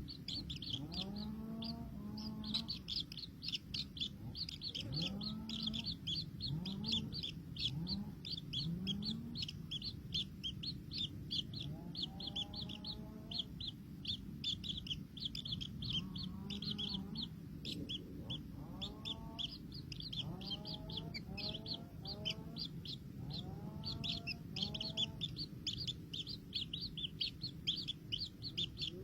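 Chickens: a flock of chicks cheeping rapidly and continuously, while a hen gives low, rising clucking calls in short runs of two to four every few seconds.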